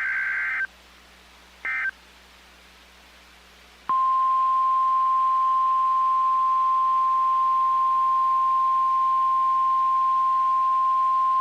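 NOAA Weather Radio alert signal: the tail of a burst of warbling digital header data, a second short burst near two seconds in, then the steady one-pitch warning alarm tone starting about four seconds in and held. The tone announces a severe thunderstorm warning about to be read.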